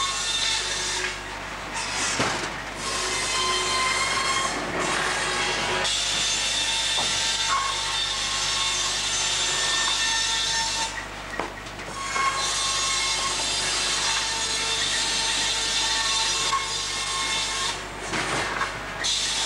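Large sawmill circular saw ripping long logs, a loud steady high whine with sawing noise. It drops away briefly four times, between cuts, with a few sharp knocks in the gaps.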